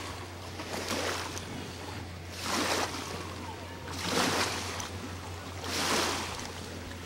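Water splashing and sloshing in regular swells, one about every second and a half to two seconds, over a low steady hum.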